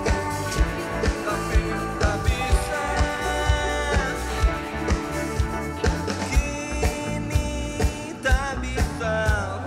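Live rock band playing: electric guitars and a drum kit keeping a steady beat, with sung vocals over them.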